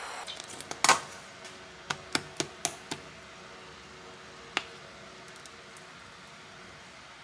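Kitchen handling sounds: a sharp clack about a second in, then a quick run of five light clicks, and one more click a couple of seconds later, over a faint steady hum.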